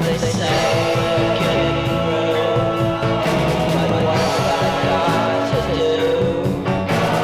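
Rock music with a singing voice over a full band.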